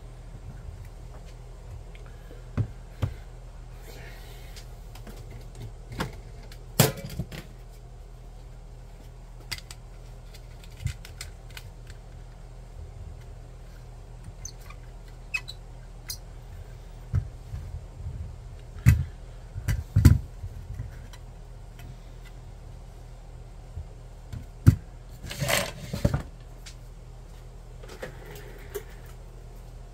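Scattered clicks, knocks and rubbing as hands handle and assemble the small metal and plastic parts of a DIY camera dolly, screwing a camera mount onto its plate and setting the wheeled dolly down. The loudest knocks cluster about two-thirds of the way in and again near the end, over a steady low hum.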